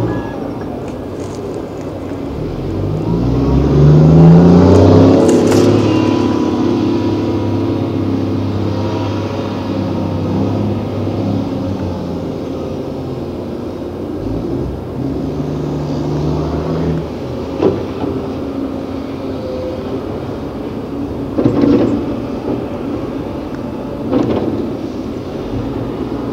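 Large diesel engine of heavy quarry machinery rising in pitch and getting louder about three to five seconds in, then running steadily. Three sharp knocks come in the second half.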